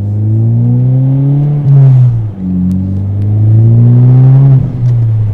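Honda Civic Type R FK8's turbocharged four-cylinder through a Greddy DD-R resonated cat-back exhaust, accelerating hard through two gears: the engine note climbs, drops at an upshift about two seconds in, climbs again and drops at a second upshift near the end. Heard from inside the car with the windows down.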